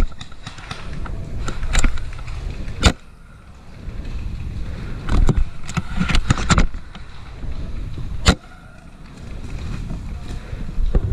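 Low rumbling wind and movement noise on a helmet-mounted camera, broken by several sharp clicks or knocks.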